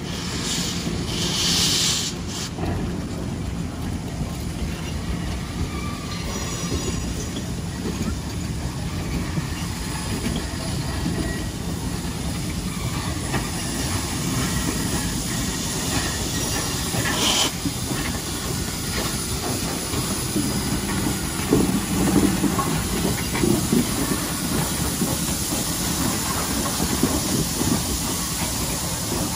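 Nickel Plate Road 765, a 2-8-4 Berkshire steam locomotive, moving slowly with its passenger cars: a steady rumble of wheels on rail with hissing steam. The hiss comes in louder bursts near the start and again briefly about seventeen seconds in.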